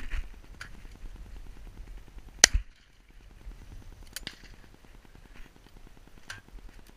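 A single loud shotgun shot about two and a half seconds in, fired at a duck and missing it, with a few fainter sharp cracks before and after.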